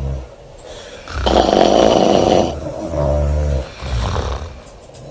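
Women snoring loudly: a long, harsh, rattling snore about a second in, followed by two shorter buzzing snores.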